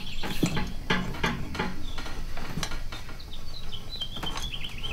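Hand-handling noises of plastic tubing and steel wire being worked into place: scattered light clicks and rustles. In the second half there is also a faint, high, wavering tone.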